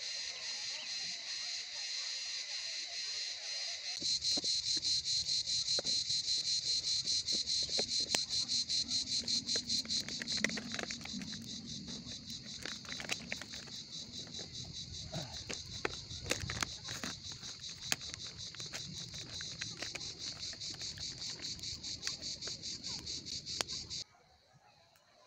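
A chorus of insects chirping in a fast, even pulse, high-pitched, growing louder about four seconds in, with scattered sharp clicks over a low rustling noise. It cuts off suddenly near the end.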